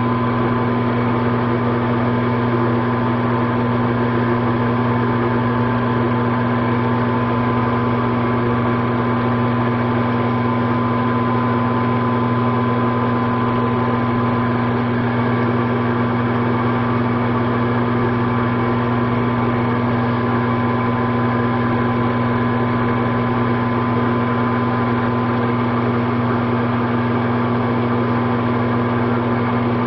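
Metal lathe running steadily at speed, a constant motor and gear hum with a steady whine, while single-point threading a brass bolt.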